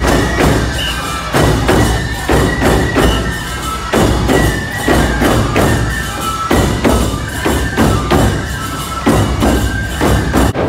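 Nebuta bayashi festival music played live: large taiko drums on a float struck in a steady, driving rhythm, with a bamboo flute melody and clashing hand cymbals.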